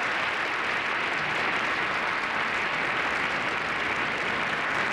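A large audience applauding steadily: many hands clapping at once.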